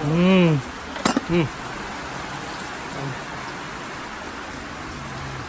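A man's drawn-out vocal exclamation that rises and falls, a pair of sharp clicks about a second in, and another short vocal sound. Underneath, a steady hiss of heavy rain.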